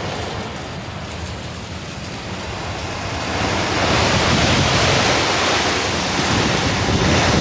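Heavy rain and gusting wind of a rainstorm, with wind buffeting the microphone; the rush swells louder about three and a half seconds in.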